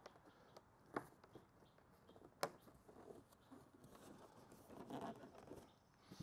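Faint handling of a cardboard shipping box: two light knocks, about a second and two and a half seconds in, then soft scraping as hands feel along its edges.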